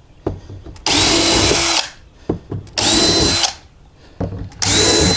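Power drill run in three short bursts, its motor whining up to speed each time, to enlarge a screw hole in the plastic deck of a kayak. Small knocks fall between the bursts.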